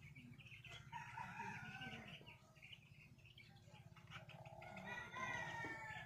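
Vanaraja chickens in a poultry pen calling, with a longer crow-like call near the end, over a steady low hum.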